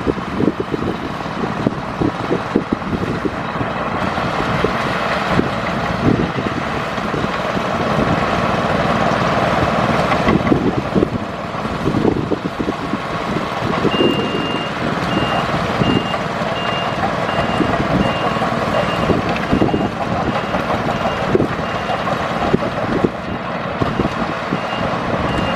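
Bulldozer's diesel engine running under load, with repeated low clanks from the tracks and machine. About halfway through, a reversing alarm starts beeping about twice a second, pauses briefly near the end, then resumes.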